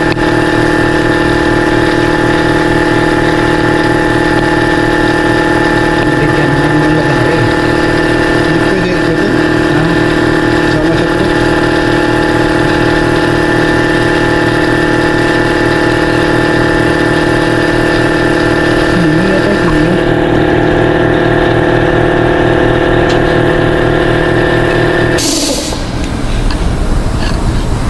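Electric air compressor running with a steady drone, then shutting off abruptly about 25 seconds in with a short burst of hiss: it has reached its cut-out pressure and the unloader valve releases air.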